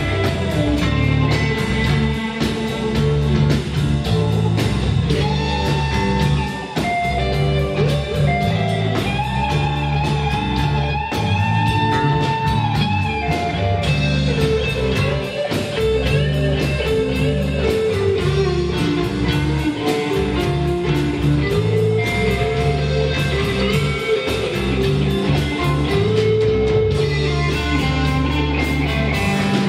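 A live rock band plays an instrumental passage, with an electric guitar carrying the lead in long held, bending notes over the band.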